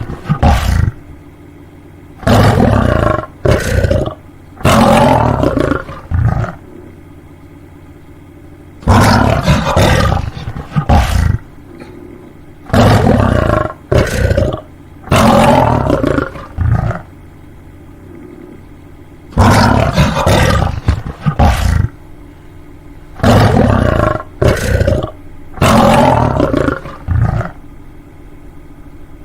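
Lion roaring in repeated bouts, each a loud long deep roar followed by one or two short grunts, about seven bouts in all. A faint steady hum lies in the gaps between them.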